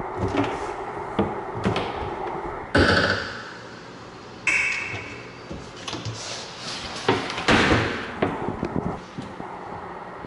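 Kitchen cabinet doors being opened and shut by hand: a run of knocks and hinge clicks, with louder bangs about three and four and a half seconds in. A further cluster of clacks near the end comes as the dishwasher door is opened.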